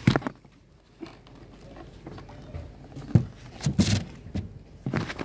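Handling knocks, thumps and a scraping rustle as the cover of a cement stingless-bee hive is taken off: a sharp knock at the start, then several thumps with a rustle about three to four seconds in, and another knock near the end.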